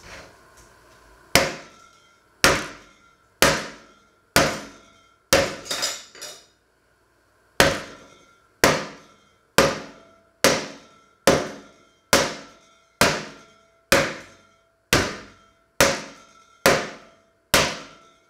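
Meat being pounded flat on a wooden cutting board: sharp blows about once a second, each ringing briefly. A few quicker hits come around the fifth second, then a short pause before the steady pounding resumes.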